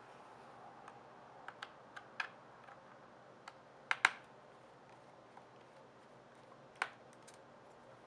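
Small screwdriver clicking and tapping against the bottom-case screws and aluminium casing of a late 2008 MacBook as the screws are undone, a scatter of sharp little clicks at irregular intervals. The loudest is a quick double click about four seconds in.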